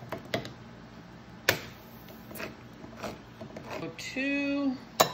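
Canned mixed vegetables being emptied into a glass mixing bowl: a handful of sharp clinks and knocks as the metal can and a spatula strike the bowl's rim, with the loudest about a second and a half in and a quick pair near the end.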